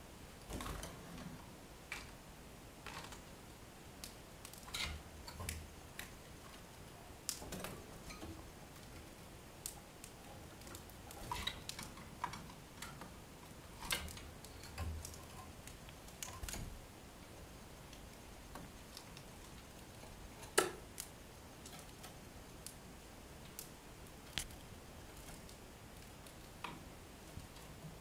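Small cage birds moving about a wooden-framed wire cage: scattered, irregular light clicks and taps of feet on perches and wire and beaks at feeders, with one sharper tap about two-thirds of the way through.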